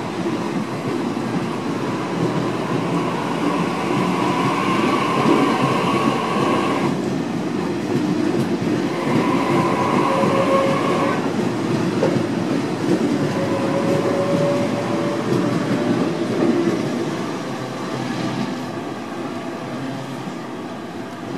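Sydney Trains double-deck electric train moving past the platform, its wheels rumbling and clicking over the rail joints. A motor whine switches on and off a few times. The sound fades away near the end.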